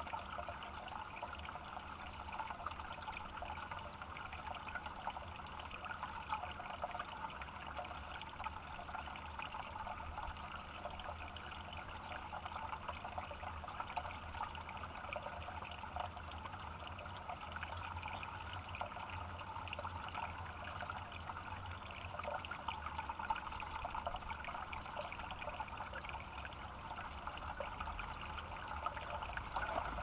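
Steady trickling of running water, with a faint low hum underneath.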